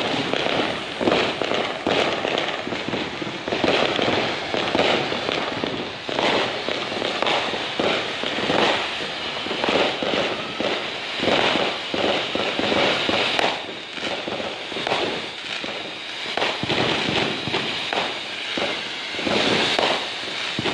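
A 10-inch 'ice cream' ground fountain firework burning and spraying sparks with a continuous hissing rush that surges and eases about every second, laced with crackling pops.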